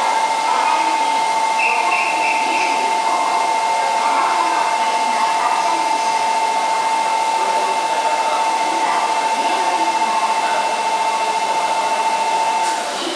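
Steady high-pitched electrical whine over the general noise of a station platform, cutting off suddenly near the end. It is most likely the equipment of a train standing at the platform.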